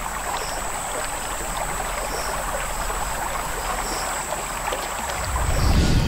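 River water lapping and splashing with small crackles around a Nile crocodile swimming through it. A faint, steady high whine sits behind it, and a low rumble comes in near the end.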